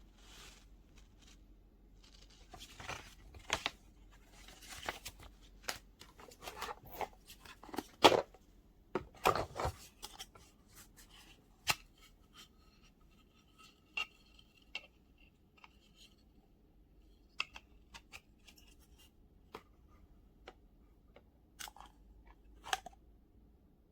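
Hand-handling noises: rustling with scattered sharp clicks and knocks, the loudest knocks about eight and nine seconds in, then sparser clicks.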